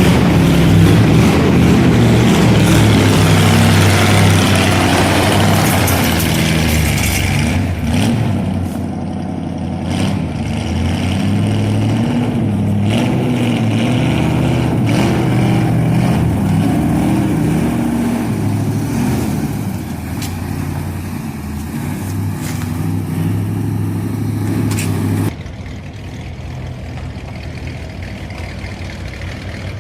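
Dodge Dart V8 engine running loud, revved up and down so its pitch rises and falls, then dropping suddenly to a quieter, steady idle about 25 seconds in.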